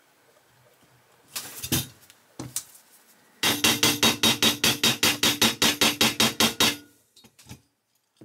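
Mobile phone message alert: a rapid, even pulsing at about seven beats a second, starting about three and a half seconds in and lasting some three seconds. Before it come two short clicks of the plastic model parts being handled.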